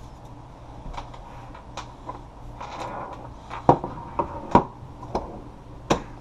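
Scattered sharp clicks and knocks of Ruger 10/22 rifle parts being handled and fitted back into the stock, with a brief rustle before the loudest knocks about four seconds in.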